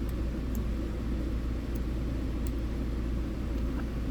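Steady low rumble in the background. Over it come a few faint, sharp metallic ticks from a hook pick working the spool pins of a Master Lock 410 padlock core.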